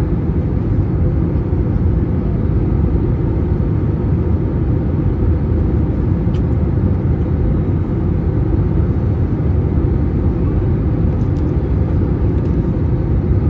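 Steady cabin rumble of an Airbus A321neo in descent: airflow and the CFM LEAP-1A turbofans, heard from inside the cabin.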